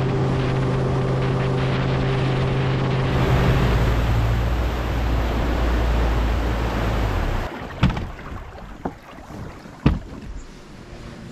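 Bass boat outboard motor running at speed with wind and water rushing past, dropping in pitch about a third of the way in as the boat slows, then cutting out about two-thirds of the way in. A few sharp knocks follow on the boat, the loudest near the end.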